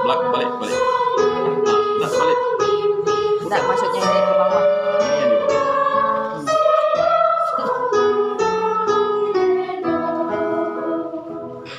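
A song: a sung melody over a plucked-string accompaniment with quick repeated notes, growing quieter near the end.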